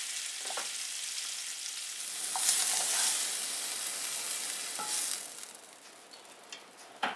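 Butter sizzling in a hot frying pan as browned chuck roast pieces are lifted out with tongs, with a few light knocks. The sizzle swells a little midway, then dies down near the end as the pan empties.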